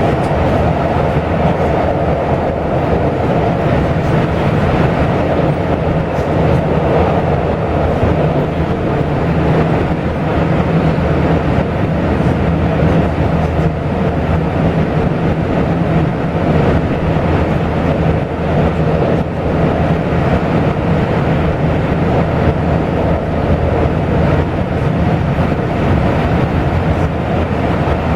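Taiwan Railway local express train running, with a steady rumble of wheels on track that holds at an even level throughout.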